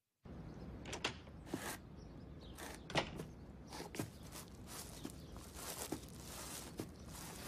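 Uneven footsteps of a man walking with one side of his body paralysed, a dozen or so irregularly spaced steps over a steady outdoor background hiss.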